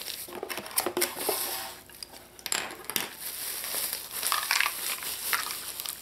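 Bubble wrap crinkling and rustling as it is pulled off a bundle of plastic string lights from a cardboard box, with irregular light clicks and knocks.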